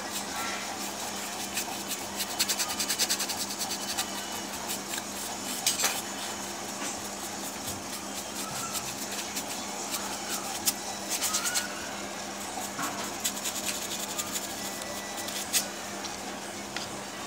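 Paintbrush dabbing and scrubbing paint onto a painting board in short runs of quick taps, over a steady background hum.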